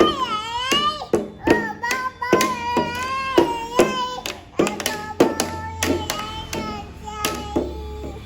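A children's song sung in a high voice over a steady beat of sharp taps, about two to three a second.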